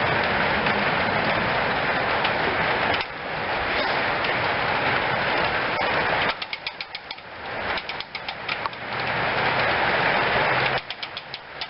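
Clockwork spring mechanism of a 1912 Converse wind-up toy car being worked with its key: long stretches of dense, rapid mechanical clattering that alternate with separate sharp clicks.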